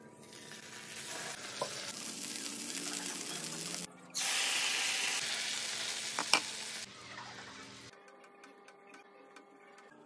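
Marinated chicken sizzling as it fries in a non-stick frying pan. After a cut about four seconds in, sauce sizzles in the pan as it is stirred with a spatula, with a sharp click partway through. The sizzle dies away for the last couple of seconds.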